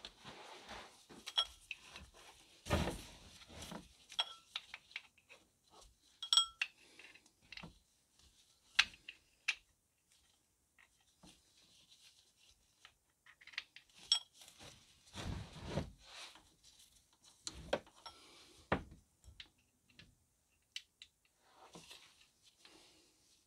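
Scattered metallic clinks and taps of a T50 Torx bit and tool against engine parts, with rustling of gloved hands, as it is groped into place on the drive belt tensioner bolt of a Ford 2.0 TDCi engine. A few of the clinks ring briefly.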